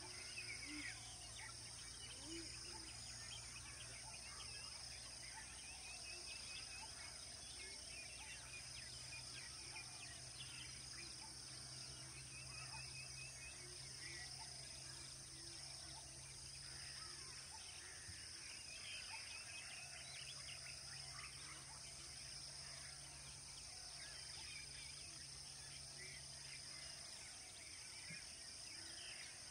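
Faint outdoor ambience of birds chirping and a steady high insect drone, with a low steady hum underneath for most of the time.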